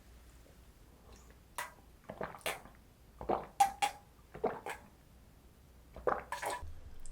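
Light taps and clinks of utensils on dishes, in about five short clusters, one with a brief ring.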